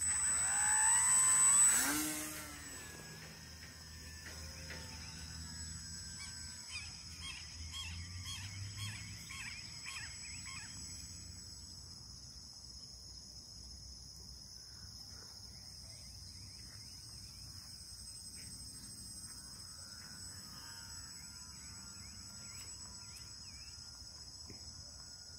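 Electric motor and propeller of a small foam RC glider at full throttle during a hand launch, loud for about two seconds with a wavering pitch, then falling away quickly and fading to faint over the next ten seconds as the plane climbs away. A steady high hiss runs underneath.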